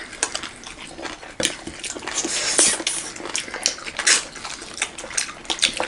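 Eating by hand: wet chewing and lip smacks mixed with fingers tapping and scraping food on stainless steel plates, as many small irregular clicks.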